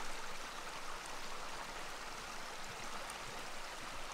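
Brook flowing: a steady, even rush of running water.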